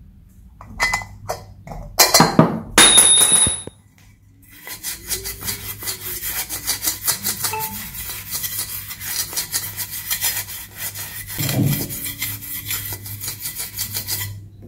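Stainless steel utensils clink together and ring briefly. Then a cloth scrubs rapidly and steadily over a stainless steel idli plate for about ten seconds, scouring hard-water stains off the steel.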